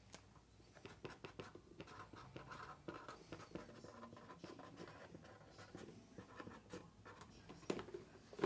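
Faint scattered clicks and light scratching from hands working at a desk, with a sharper knock near the end.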